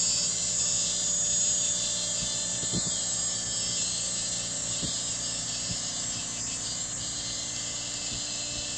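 Vehicle engine running with a steady low drone under a constant high hiss, with a few faint low bumps.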